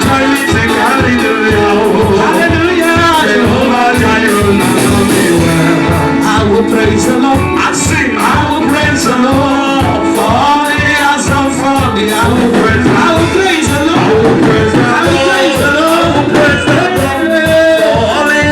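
Gospel song: singing over a steady, fast drum beat with instrumental backing.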